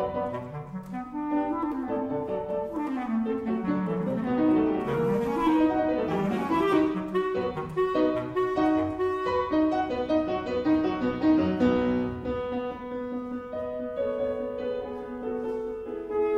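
Background music: a woodwind melody playing quick runs of notes over piano accompaniment.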